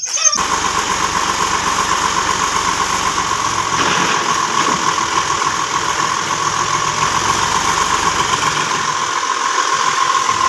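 Red farm tractor's diesel engine running steadily at idle, with a steady high whine over the engine noise.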